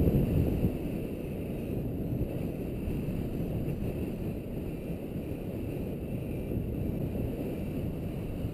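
Airflow buffeting the microphone of a camera carried by a paraglider pilot in flight: a steady low rumble, a little louder in the first second.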